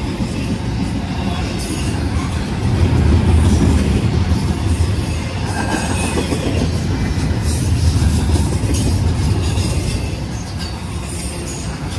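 Freight train rolling past on the track: a steady, loud low rumble of the cars, with scattered clicks and clatter from the wheels on the rails, swelling a few seconds in.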